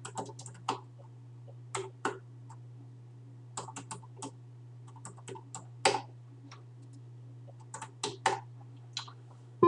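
Typing on a computer keyboard: separate key clicks, alone and in short quick runs with pauses between, over a steady low hum.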